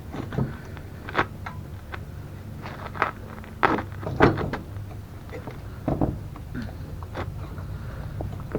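A handful of irregular knocks and clunks, the loudest two coming a little past halfway, over a steady low hum.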